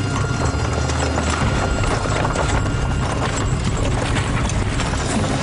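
Hooves of a pair of ponies pulling a scurry carriage at speed: a dense, continuous clatter of hoofbeats.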